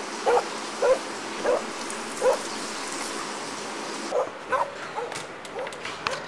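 A dog giving a series of short yipping barks, one every half second to a second, over the steady rush of a kitchen tap running. The water noise stops about four seconds in while the barks go on.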